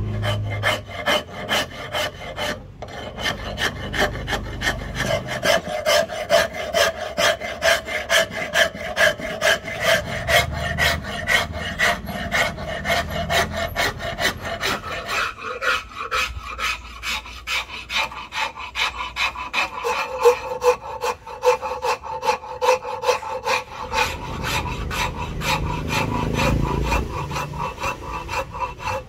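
Hand rasp scraping a curly padauk axe handle in a long, even run of back-and-forth strokes, about two to three a second.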